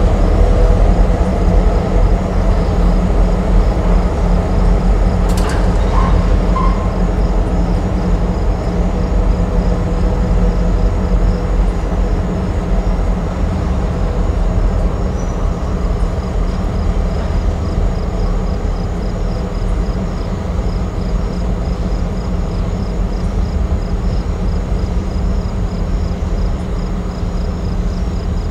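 Diesel freight locomotive and train running past and pulling away, a steady low rumble that slowly fades. There is a single sharp click about five seconds in.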